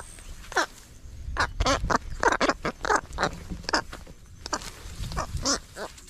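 Captured egrets calling in a quick series of short squawks, about two a second, with a low rumble on the microphone underneath.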